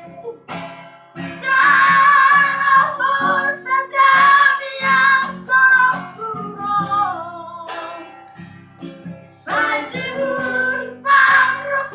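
A five-year-old girl singing a song in phrases of held, wavering notes, with guitar accompaniment.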